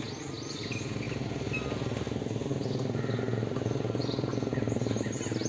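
Outdoor ambience: small birds chirping in short, high, falling calls over a steady low hum. The chirps come more often near the end.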